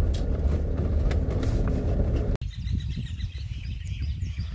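A car driving, a steady low rumble. About two and a half seconds in the sound cuts off abruptly and gives way to a quieter low rumble with birds chirping.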